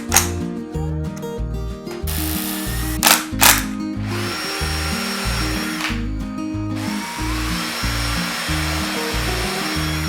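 Power driver running screws into wood: two long runs of the motor whine, the second starting about 7 s in, with a couple of sharp clicks shortly before. Background music with a steady bass beat underneath.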